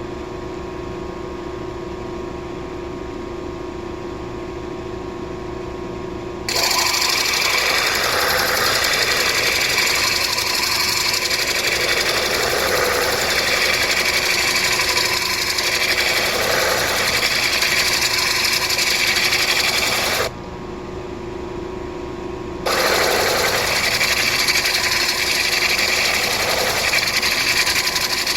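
Grinding-wheel motor running with a steady hum, then a stone pressed against the spinning wheel, making a loud, rough grinding noise. The grinding breaks off for about two seconds, leaving only the motor hum, then resumes.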